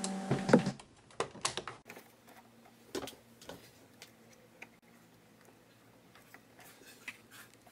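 Small, irregular plastic clicks and taps as fingers press flexible ink tubes into the clip holder of a Brother MFC-J425W inkjet printer.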